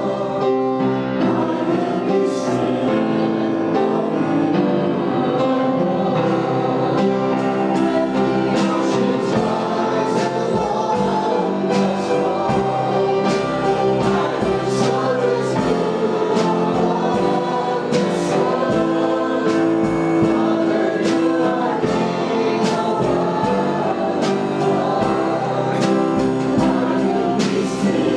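Church worship band and congregation singing a worship chorus together, with steady drum and cymbal hits keeping time.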